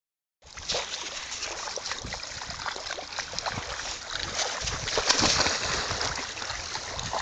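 Shallow lake water splashing and sloshing as dogs wade through it, with many small splashes. It gets louder about five seconds in, when a larger dog runs splashing into the water.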